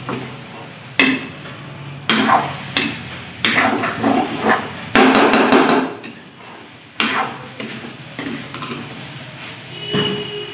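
A cooking spoon knocking and scraping in a pan as food is stirred, with irregular knocks and one longer scrape about five seconds in.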